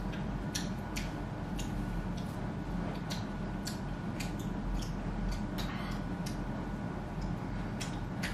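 Irregular light clicks, a few a second, over a steady low room hum.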